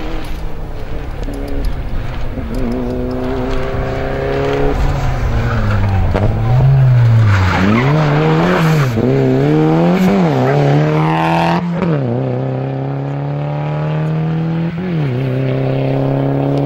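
Rally car's engine at full throttle, its pitch climbing, then swinging quickly up and down several times as the car is driven through a bend. It drops sharply about twelve seconds in and then holds a long, steady high-revving run.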